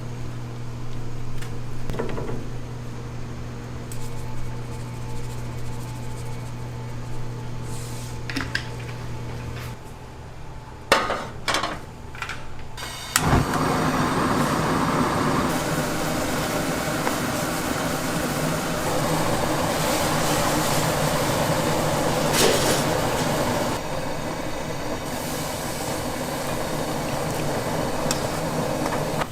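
A steady low mechanical hum with a few clicks and knocks, then from about thirteen seconds in a loud, continuous sizzle of food frying on a hot pan in a restaurant kitchen.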